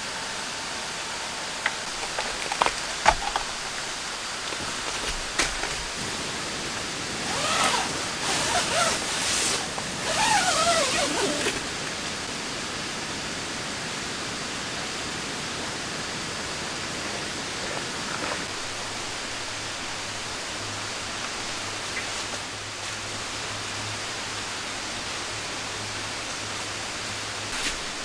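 Steady rain falling on tent fabric, an even hiss, with a few scattered clicks and a louder spell of wavering, gliding tones about eight to eleven seconds in.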